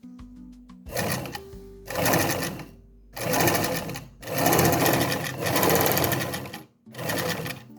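A small motorised machine running in five short bursts, the longest about two seconds, with a fast mechanical chatter. Soft background music plays underneath.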